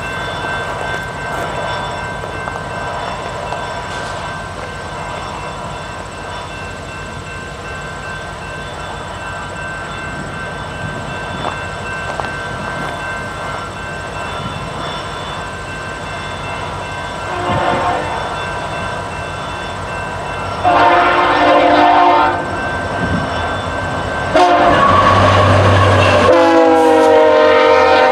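Diesel locomotive air horn sounding on an approaching VIA Rail passenger train led by F40PH-2D units: a short blast, then two long blasts, the last one dropping in pitch as the locomotives pass. A steady mechanical hum runs underneath before the horn starts.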